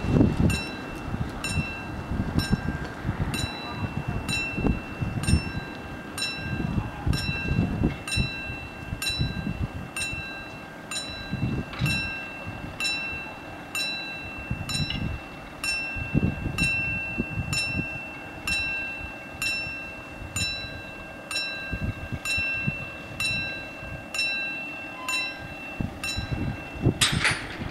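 Level-crossing warning bells ringing in even strokes, about one and a half a second, as the crossing warns of an approaching train; the ringing stops near the end once the barriers are down. Wind buffets the microphone underneath.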